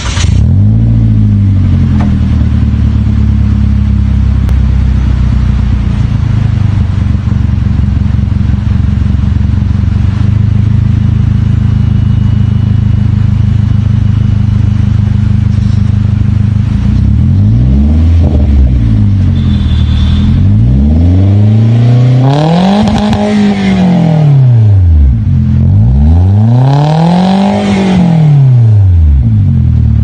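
Toyota Avanza's four-cylinder engine idling through an HKS Black Titanium large-can aftermarket muffler. It is blipped briefly at the start, then revved three times in the second half, each rev rising and falling, the last two higher and longer.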